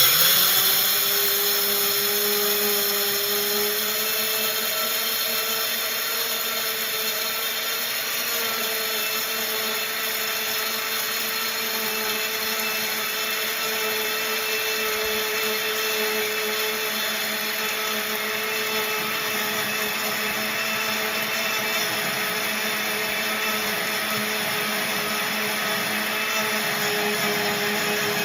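Electric mill running steadily as it grinds wheat berries into flour, a loud, even motor whine with a slight rise in pitch over the first few seconds.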